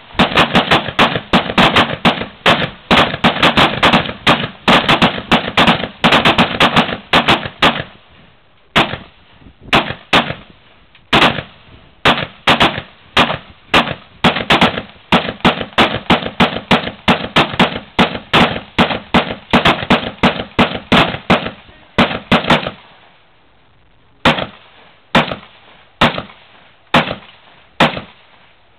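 Several L98A2 5.56 mm rifles firing rapid on a firing line. Sharp shots come thick and overlapping for the first eight seconds or so, then thin to roughly two a second. There is a short pause about 23 seconds in, then slower single shots.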